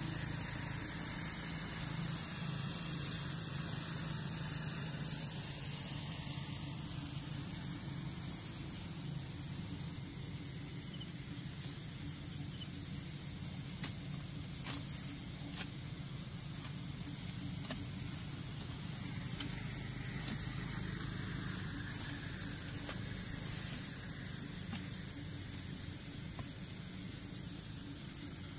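Steady outdoor night hiss with an even, high-pitched drone of night insects. A few faint knocks about halfway through come from a blade digging into the soil of a frog hole.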